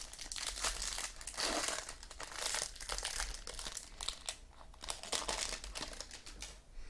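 Crinkling and rustling of trading-card pack wrappers and packaging being handled and opened, an irregular run of crackles.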